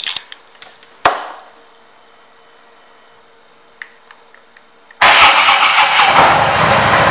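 A sharp click and about two seconds of a faint electrical whine as the ignition is switched on. About five seconds in, the 2015 Harley-Davidson Switchback's 103 cubic-inch V-twin starts suddenly and runs loud and evenly pulsing through its Vance & Hines exhaust pipes.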